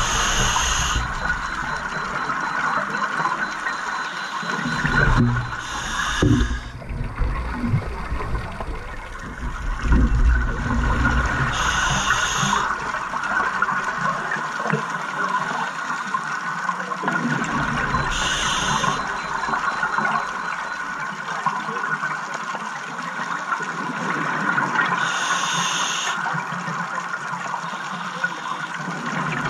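A scuba diver breathing, heard underwater close to the camera. The regulator releases a burst of exhaust bubbles about every six seconds, five times in all, over a steady underwater hiss and low rumble.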